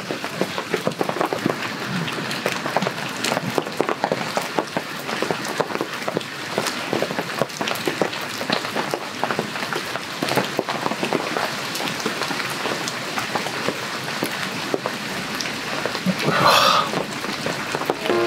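Heavy rain pattering on a tarp overhead, a dense steady spatter of drops. Near the end a short louder burst stands out over it.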